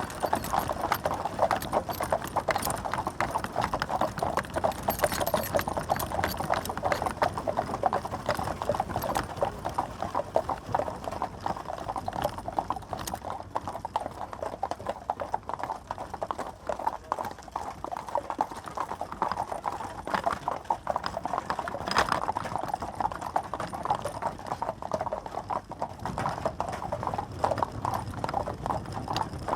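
Horse-drawn carriage: the horse's hooves clip-clop in a steady, continuous run of quick hoofbeats.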